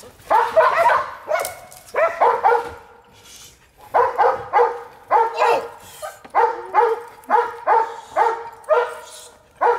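A leashed protection-training dog barks repeatedly under agitation from a decoy, about two sharp barks a second, with a pause of about a second near the middle.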